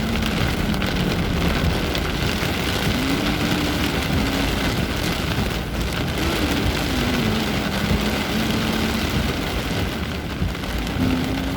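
Heavy rain pouring down steadily, with a low tone underneath that rises and falls in pitch several times.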